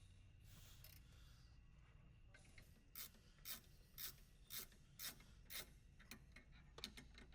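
Faint ratchet wrench clicking in short strokes, about two a second, while tightening the bolts of a sway bar end link bracket.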